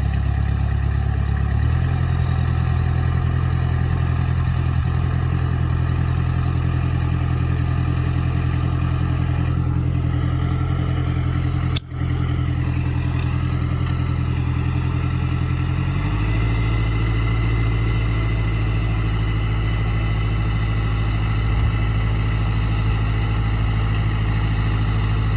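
Suzuki Samurai engine running steadily under load, its note shifting in pitch twice, about two seconds in and again about two-thirds of the way through. The sound cuts out for an instant about halfway through.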